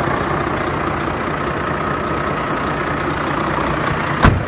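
Heavy truck's diesel engine idling steadily, with one sharp knock near the end.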